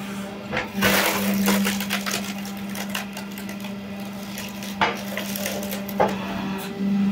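Log splitter pushing a log onto its wedge: the wood cracks and splinters in a loud burst of crackling about a second in, then gives a few sharper cracks and knocks near the end, over a steady machine hum.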